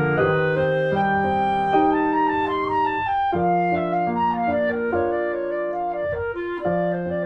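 Instrumental background music: a held, legato woodwind melody over piano chords.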